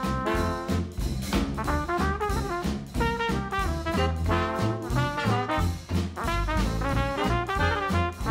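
Background music: upbeat jazzy swing tune with brass lead and a steady beat.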